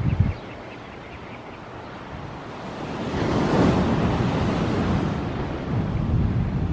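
Ocean surf: a wave breaks about three seconds in, a rushing swell of water that builds and stays up. A short low thump of wind or handling on the microphone comes at the very start.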